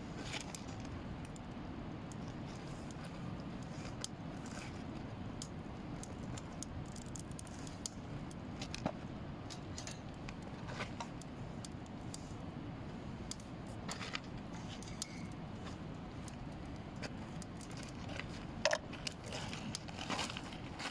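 Metal tongs clicking against each other and against a charcoal grill's wire grate as marinated steaks are laid on it: scattered sharp clicks over a steady low rush.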